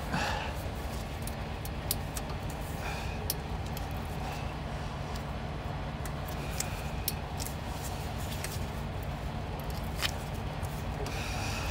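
Steady low hum of an idling truck engine, with scattered sharp clicks and light clinks from hands working on the truck's exhaust pipe.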